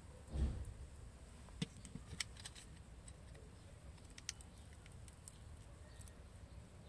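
A low thump about half a second in, then sparse faint clicks and light scrapes of a utility-knife blade working on the exposed copper core of a stripped cable.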